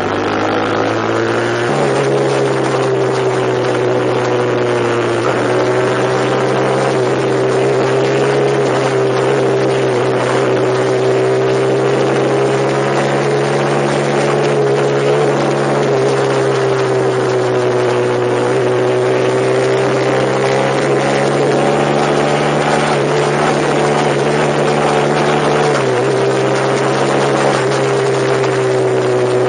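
A vehicle engine running steadily under way, its pitch drifting gently up and down as the revs change.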